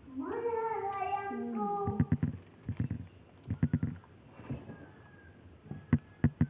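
A child's wordless vocal sound: one drawn-out note that rises, holds, then drops in pitch, followed by a few short runs of quick mouth pops or clicks.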